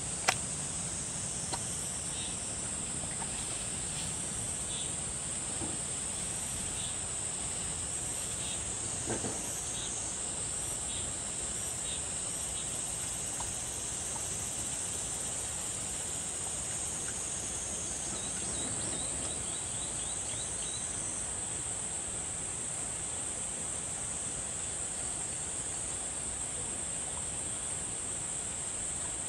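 Steady high-pitched chorus of insects. Faint intermittent clicks, likely from a dog eating from a dish, and one sharp click just after the start.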